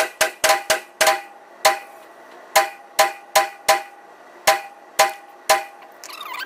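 A string of 9mm shots from a Glock 43X pistol in an indoor range, each a sharp crack with a short ringing echo. About five come in quick succession in the first second, then they go on at roughly two a second.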